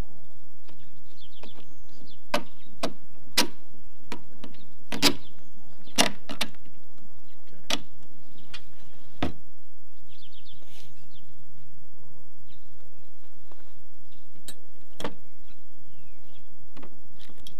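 Sharp clicks and knocks of a kayak rudder's plastic blade and metal mounting bracket being handled and fitted together while a bolt is pushed through the mount by hand. About a dozen separate knocks, most of them in the first half.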